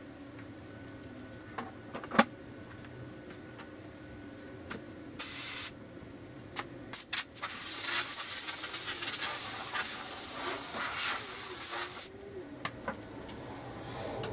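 Compressed air hissing from a handheld air gun on a compressor hose: a short burst, a few quick puffs, then a steady blast of about four to five seconds that cuts off sharply. A single sharp click comes about two seconds in.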